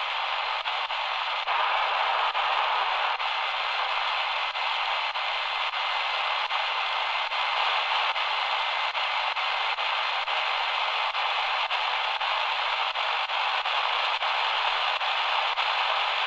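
Shortwave static from the speaker of an XHDATA D-328 pocket radio on its 4.75–5.06 MHz shortwave band: a steady hiss with faint crackles while it is tuned between stations, with no station coming in.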